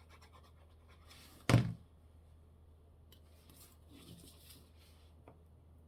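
A single sharp thump about a second and a half in, as of something set down or pressed on a craft tabletop, with faint handling rustles before and after and a light tick near the end.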